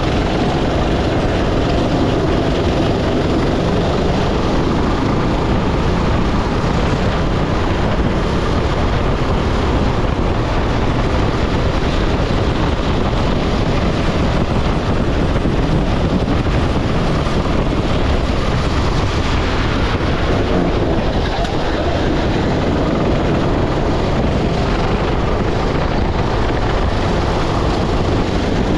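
Onboard sound of a go-kart driven at racing speed: its engine running steadily under load, mixed with wind buffeting the microphone, loud and unbroken.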